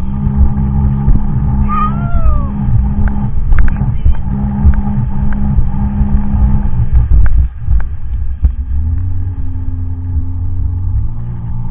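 Sea-Doo personal watercraft engine running hard at speed. About seven and a half seconds in the sound dips briefly, and the engine note then settles lower as the craft banks into a turn. A short high falling squeal is heard about two seconds in.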